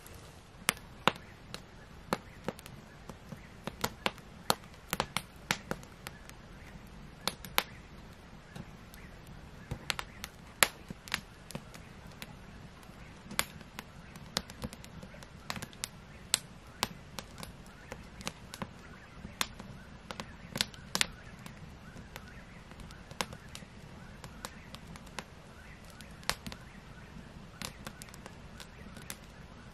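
Log fire in a metal fire pit crackling, with sharp, irregular pops a few times a second over a faint low rumble.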